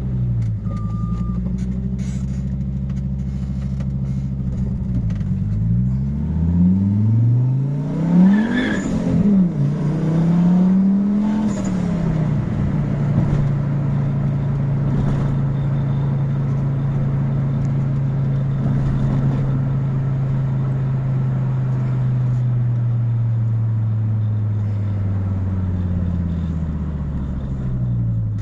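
Turbocharged five-cylinder engine of a Fiat Marea 2.0 20V, running steadily, then revving hard from about five seconds in. Its pitch climbs and drops a few times, loudest about eight seconds in, then settles to a steady note that slowly falls near the end.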